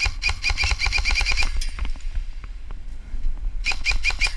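G&G TR16 airsoft electric rifle firing in full-auto bursts: a rapid string of about ten shots at roughly seven a second, then after a pause a short burst of four shots near the end. A steady low rumble runs underneath.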